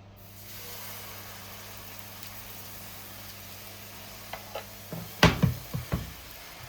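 Steady hiss of pancake batter frying in an oiled pan. Near the end come a handful of sharp knocks and clatters, one much louder thump among them.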